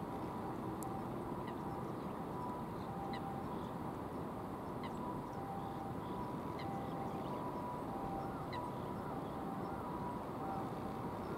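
Mallard ducks calling faintly, in short calls every second or two, over a steady low rush of background noise.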